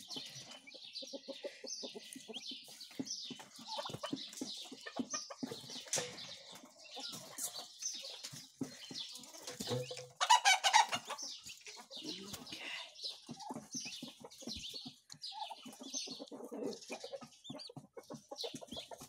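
Turkey poults peeping in many short high chirps as they feed, with low clucking from the turkey hen. A louder call stands out about ten seconds in.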